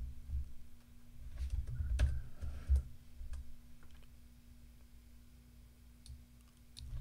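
Computer keyboard being typed on in short, soft runs of keystrokes while words are deleted from a line of text, busiest in the first three seconds and then only scattered single clicks. A faint steady low hum lies underneath.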